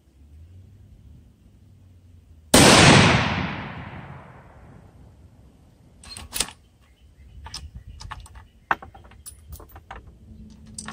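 A single shot from a .243 Winchester bolt-action rifle about two and a half seconds in, a sharp crack whose tail dies away over about two seconds. It is followed by a series of sharp metallic clicks and clacks as the bolt is worked to eject the spent case and chamber the next round.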